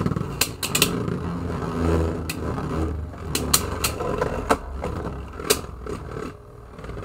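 Two Beyblade Burst tops, Helios Volcano and Dynamite Belial, spinning in a plastic stadium. Their tips make a steady whirring grind on the floor, broken by about eight sharp clacks as they collide. The sound fades after about six seconds.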